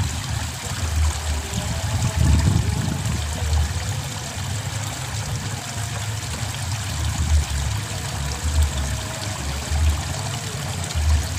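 Water flowing and trickling in a small irrigation ditch, a steady running sound, with an irregular low rumble under it.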